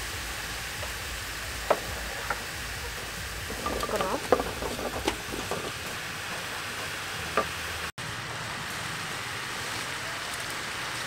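Beef frying in a metal pot with a steady sizzle, while a wooden spatula stirs and scrapes through the meat and knocks against the pot now and then.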